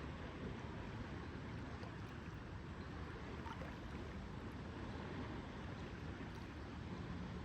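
Steady lakeside ambience: lake water lapping gently, with a low, even rush of wind.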